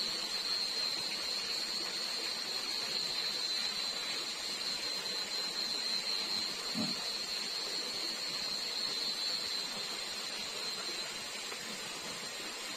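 Night insects such as crickets chirring as one steady high-pitched drone, over a constant hiss of flowing stream water. A single soft knock sounds about halfway through.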